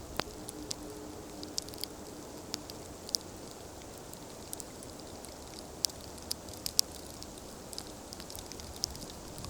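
Campfire crackling: irregular sharp pops and snaps over a steady low hiss.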